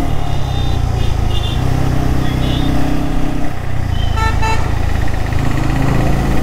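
Bajaj Pulsar N250's single-cylinder engine running at low speed in city traffic, its note stepping up and down. A vehicle horn gives two short toots about four seconds in.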